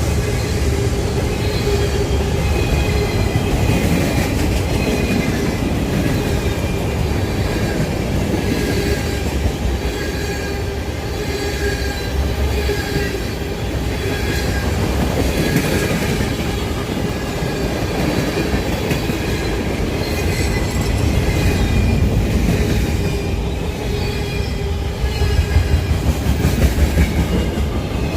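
CSX freight train cars rolling past at steady speed, the wheels clattering over the rails with a faint high-pitched wheel squeal. A run of rhythmic clickety-clack comes near the end.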